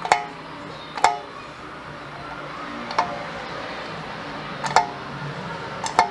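Kickstarter shaft in a KYMCO EASY 4U 100 scooter's CVT cover, turned by hand and springing back against its stop: a sharp metallic clack with a brief ring, five times at uneven intervals. This is a test that the serviced kickstart mechanism moves smoothly and returns.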